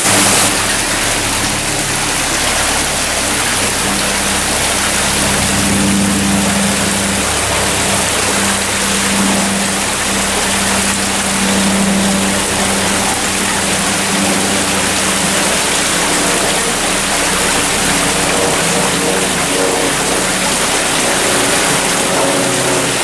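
Garden fountain water rushing and splashing in a steady loud wash, with soft music of long held low notes underneath.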